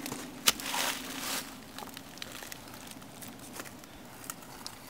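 A sharp click about half a second in and a brief crackling rustle, then scattered faint ticks over a faint steady hum.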